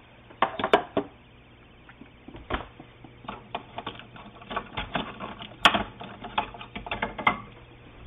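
Irregular plastic clicks and knocks from handling a Keurig single-cup coffee maker, its brewer head open and the K-cup holder being worked loose and lifted out. The sharpest click comes a little over halfway through.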